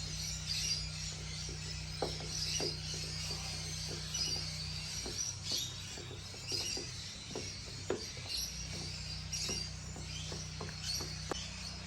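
Small scattered clicks and taps of a screwdriver working the T20 screws out of a headlight's plastic back cover, over a steady low hum.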